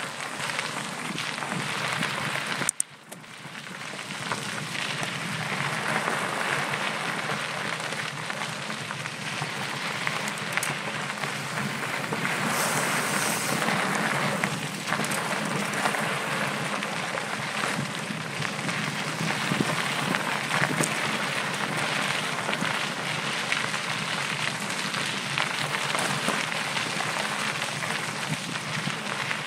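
Steady crunching hiss of mountain bike tyres rolling over a gravelly dirt trail, with small rattles and ticks from the bike and rushing air on the microphone. About three seconds in the noise drops out briefly, then builds back up.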